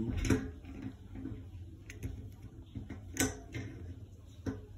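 A few scattered light clicks and taps as a replacement fuel gauge and its gasket plate are worked into the opening of a generator's metal fuel tank, the sharpest about three seconds in.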